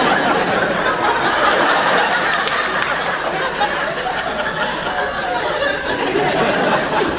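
Audience laughing steadily, a crowd's mixed laughter with no single voice standing out.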